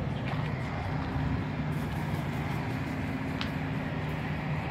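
Steady low hum of an idling motor-vehicle engine.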